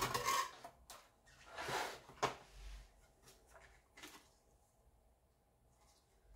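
Several short scraping and knocking sounds of craft supplies being handled on a work table, the loudest in the first half second and another about two seconds in, dying away after about four seconds.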